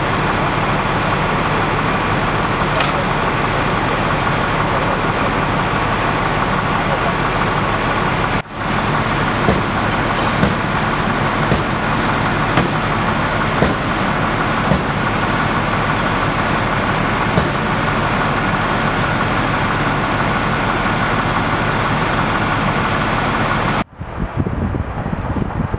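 A large vehicle engine running steadily with a constant whine over it. About a third of the way in there is a run of sharp ticks, roughly one a second. The sound breaks off briefly twice, and the last two seconds are quieter.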